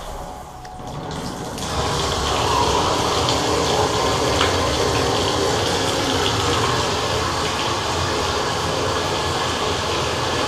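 Water gushing steadily from a bathtub spout, starting about two seconds in once the faucet handle is turned on.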